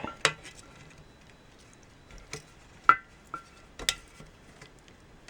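Scattered light clicks and taps, about half a dozen, a few with a short ringing tone, from handling the picture tube and chassis of a 1950s tube TV as the tube is worked free. The loudest tap comes about three seconds in.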